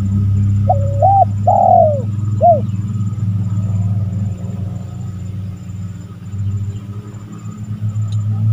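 Spotted dove cooing: a short run of three or four rising-and-falling coo notes in the first three seconds, then it stops. A steady low rumble runs underneath.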